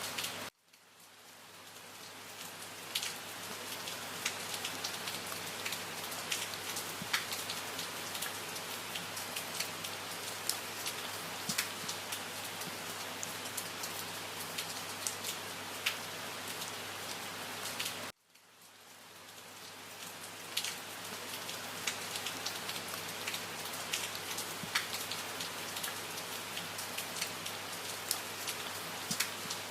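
Steady rain falling, with single drops clicking sharply over the even hiss. The sound cuts out suddenly about half a second in and again about 18 seconds in, fading back up over a few seconds each time, as at the loop point of a repeated recording.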